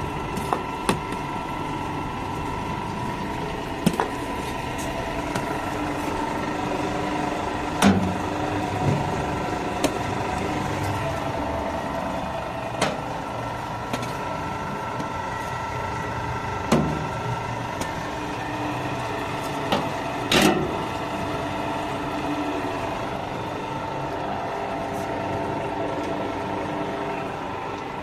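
Citrus peel screw press dewatering machine running with a steady motor and gear hum, broken by a few sharp knocks and scrapes of a steel shovel against the steel peel bin.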